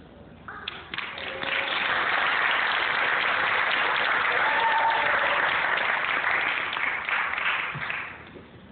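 Audience applauding: clapping starts about half a second in, builds to a dense, steady clatter, and dies away near the end.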